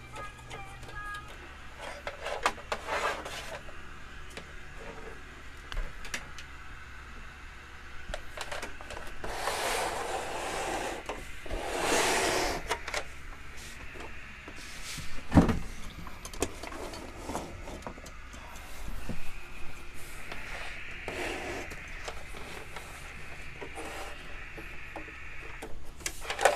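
Handling noise as a CRT television is turned around on a workbench: scraping, clicks and knocks, the loudest a single sharp thump about halfway through.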